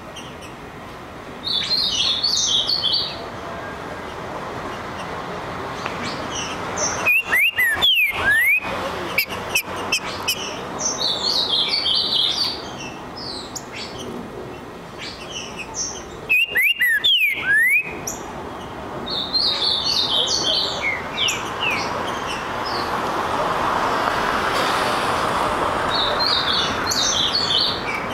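Green-winged saltator (trinca-ferro) singing short phrases of quick high notes about every eight seconds: a provoked bird answering. Twice in between comes a loud burst of sharp clicks with quick rising notes.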